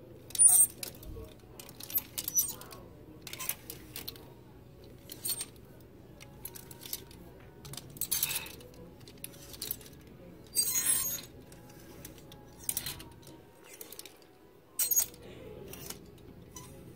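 Clear plastic clothes hangers clacking against each other and sliding along a metal clothes rail as a hand pushes them aside, a sharp clack or short rattle about every second, at irregular intervals.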